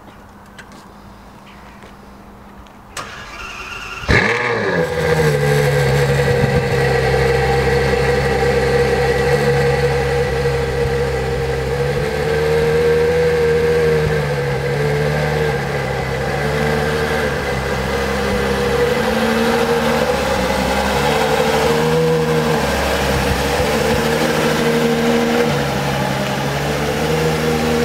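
Ferrari F12berlinetta's 6.3-litre V12 on a cold start. The starter cranks briefly about three seconds in, the engine catches just after four seconds with a short rising flare, then settles into a steady high cold-start idle whose pitch wavers slightly.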